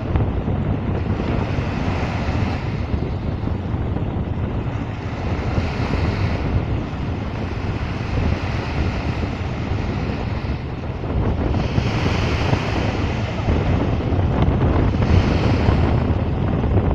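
Wind buffeting the microphone with a steady low rumble over small ocean waves washing onto a sandy beach. The hiss of the surf swells every few seconds, most strongly about twelve and fifteen seconds in.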